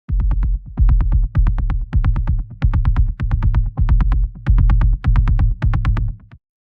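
Pulsing electronic rhythm patch from the Legacy cinematic sound-effects Kontakt library: deep bass pulses under sharp clicking hits, several a second, cutting off abruptly near the end.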